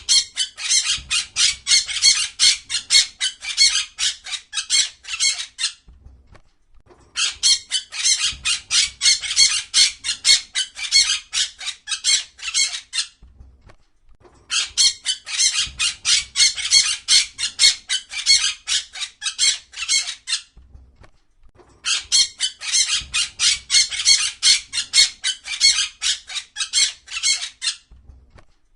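A parrot squawking in rapid, harsh calls at about five a second. The calls come in four bouts of about six seconds each, with short pauses between them.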